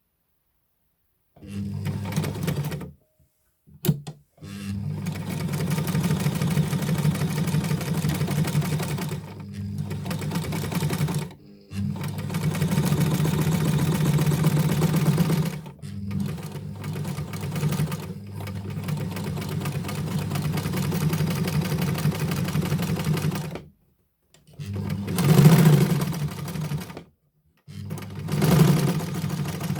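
Novum heavy-duty straight-stitch sewing machine running, sewing in stretches of a few seconds to several seconds. It stops and starts again several times, with a short click about four seconds in.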